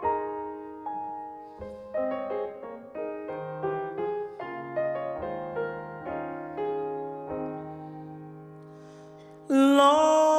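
Solo piano playing a slow interlude of chords, each struck and left to fade, growing quieter. Near the end a singer's voice comes in loudly on a long held note.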